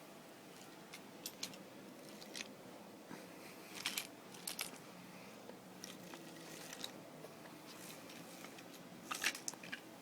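Irregular light clicks and taps of small hard objects being handled, with small clusters of sharper clicks about four seconds in and again near the end.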